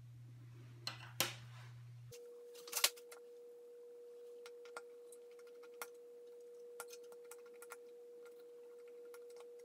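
Light metal clicks and clinks as the plates and small parts of a disassembled utility knife are handled and set down: two sharp clicks about a second in and the loudest clink near three seconds. From about two seconds in the sound runs sped up, with a steady high hum behind scattered small taps.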